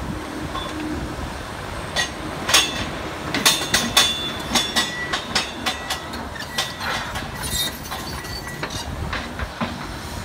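Kobelco SK170LC-10 excavator's diesel engine running under hydraulic load. About two seconds in, a rapid series of metallic clanks and high squeaks starts as the arm and bucket swing up and curl, and it dies away near the end.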